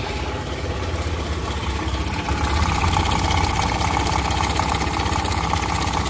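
PGO J-bubu 115/125 scooter's single-cylinder four-stroke engine idling with a loud abnormal rattle. The mechanic thinks it sounds much like a failed cam chain tensioner.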